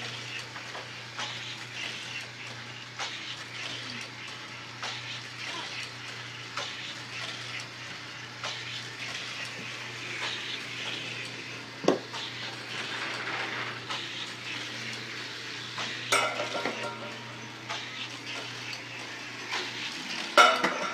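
Hard plastic toy pieces clicking and clattering on toy track, with a louder rattle about twelve seconds in and clusters near sixteen seconds and just before the end. A steady low hum runs underneath and stops just before the end.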